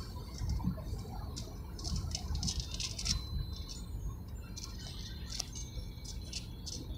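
Steady low road and engine rumble inside a moving car's cabin, with light rattling and clicking over it.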